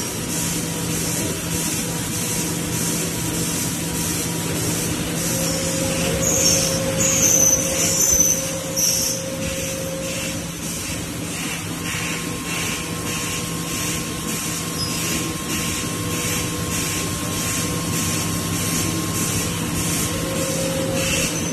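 Automatic CNC double-head lathe running while machining copper air-conditioner nuts: a steady machine hum with a few fixed tones and regular pulses of high hiss, with a few short high squeals about a third of the way through.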